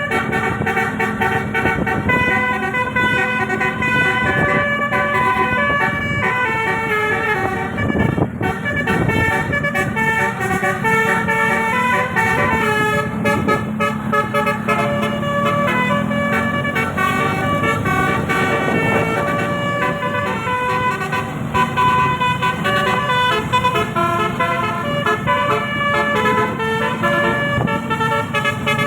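A bus's telolet air horn with 18 roof-mounted trumpets, playing a fast tune of short stepped notes throughout.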